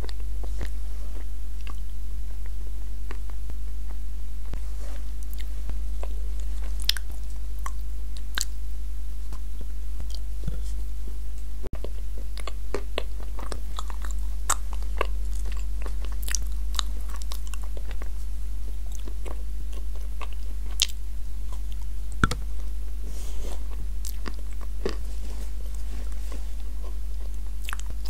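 Close-miked biting and chewing of soft, crumbly chunks of edible clay dipped in a clay cream: irregular crunches and wet mouth clicks over a steady low hum.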